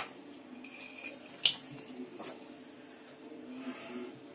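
Faint scraping of a flexible plastic scraper cut from X-ray film smoothing whipped cream around a cake. A few sharp clicks cut through it, the loudest right at the start and another about a second and a half in.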